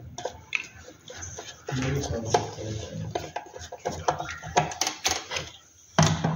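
A screwdriver working in the screw terminal of a magnetic contactor as a wire is fastened, making an irregular string of small sharp clicks and scrapes.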